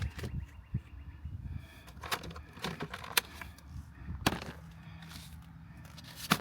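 Scattered knocks and clicks of food packages and utensils being handled and set down on a cutting board. A low steady hum comes in a little past the middle.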